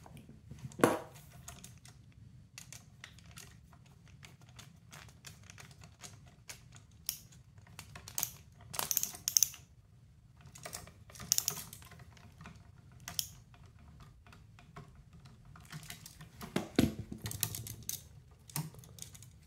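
Hands handling a duplex outlet and its bare copper ground wire, with a screwdriver turning the outlet's green ground screw: irregular small clicks, taps and scrapes, a sharp click about a second in and busier clusters of rattling later.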